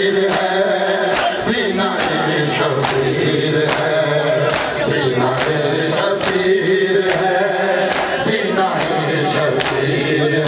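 Men's voices chanting a noha, the Shia mourning lament, over a steady rhythm of sharp hand slaps from matam chest-beating, about two strikes a second.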